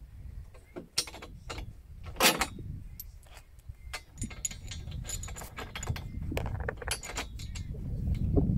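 Scattered metallic clinks, taps and knocks as metal angle bars and a solar panel's frame are handled and shifted into place, with a low rumble growing toward the end.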